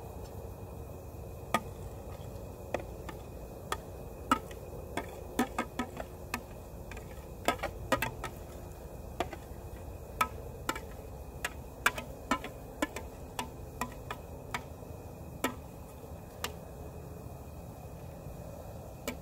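Campfire cooking: scattered sharp clicks and taps, about one or two a second and irregular, over a low steady rumble, from a wood fire and a spoon working chopped vegetables out of a bowl into a cast iron Dutch oven.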